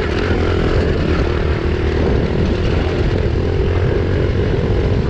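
Small pit bike engine running steadily while riding, over a steady rushing noise.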